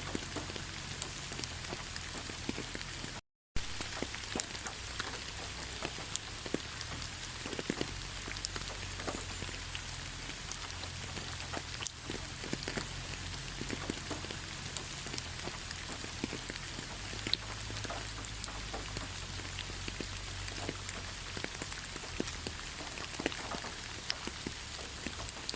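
Steady gentle rain with many separate drops ticking close by. The sound cuts out completely for a moment about three seconds in, then carries on.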